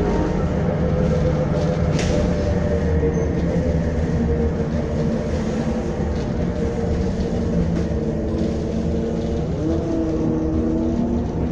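Optare Solo M950 midibus heard from inside the saloon on the move: steady engine and road noise, with a few sharp clicks, one about two seconds in. Near the end the engine note bends upward as the bus picks up speed.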